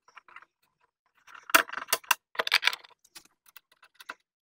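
Small sharp metallic clicks and clinks of a bolt and hand tools as the bolt is put back into the mower's bracket, louder and quicker about halfway through, with faint scattered taps around them.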